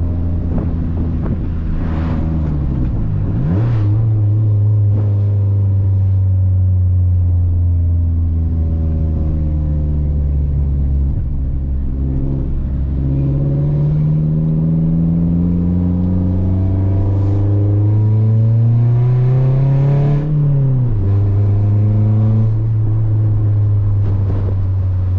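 Toyota Corolla's four-cylinder engine pulling through the gears of its manual gearbox. The engine note drops sharply with a gear change about three seconds in, climbs steadily as the car accelerates, then drops again with another upshift about twenty seconds in.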